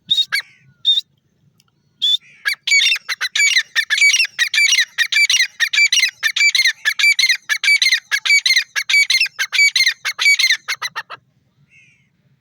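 Grey francolin calling: a few short call notes, then from about two seconds in a long, fast run of harsh, repeated notes, several a second, that stops shortly before the end.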